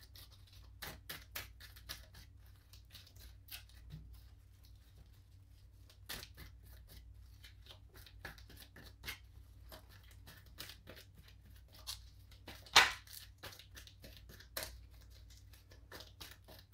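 A deck of reading cards being shuffled by hand: quiet, irregular snaps and slides of the cards, with one sharper snap about thirteen seconds in.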